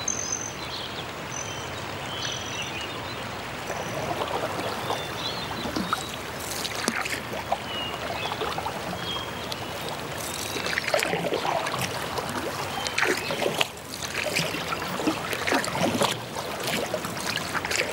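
Water trickling and lapping on a river, with a splash of a wooden boat's oar every few seconds from about six seconds in. A few short bird chirps near the start.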